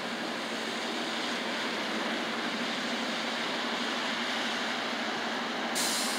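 Steady hiss of street traffic, with car tyres on wet pavement, and a short sharper high hiss near the end.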